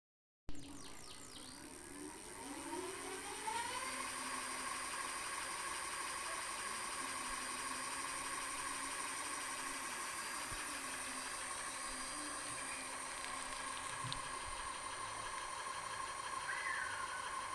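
750 W electric bike motor whining as it accelerates, its pitch rising for about three seconds, then holding a steady high whine at cruising speed over a steady rushing noise.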